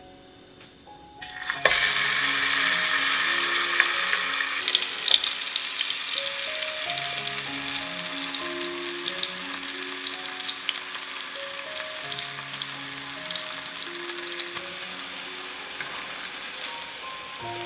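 Slices of beefsteak fungus (Fistulina hepatica) sizzling in hot oil in a nonstick frying pan. The sizzle starts suddenly about a second in as the slices go into the oil, loudest at first, then eases to a steady frying sizzle.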